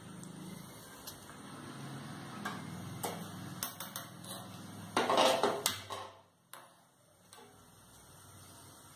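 Metal utensils clinking and tapping against a kadai of frying oil, with a louder clatter about five seconds in, over a low steady hum that drops away soon after.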